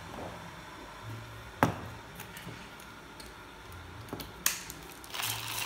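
Hand coffee grinder being handled with a couple of sharp clicks, then, near the end, cranked fast so the beans crunch and rasp through the burrs.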